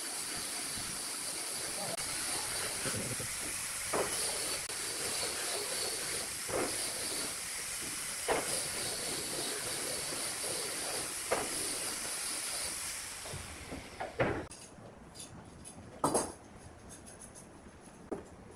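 A steady hiss that drops away about 13 seconds in, with seven short, sharp wooden knocks a couple of seconds apart as curved wooden slats and legs are handled and set on the workbench.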